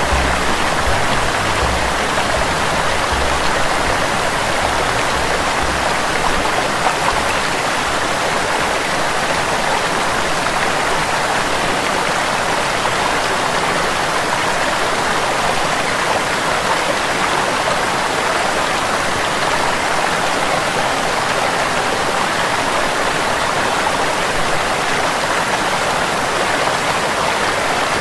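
Small waterfall and stream: water pouring and splashing steadily down shallow rock ledges in an even rush.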